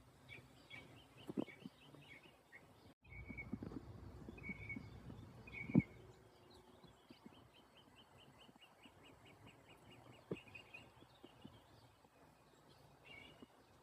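Wild birds chirping, with one bird singing a fast, even trill in the middle. A few sharp clicks and a stretch of low rumble come early on, the loudest click just before the trill.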